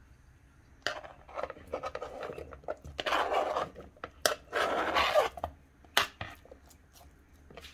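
A knife blade scraping diced boiled beetroot off a plastic cutting board into a bowl, the cubes dropping in. A run of short scrapes with two longer scrapes in the middle and a few sharp clicks of the blade and board, dying away near the end.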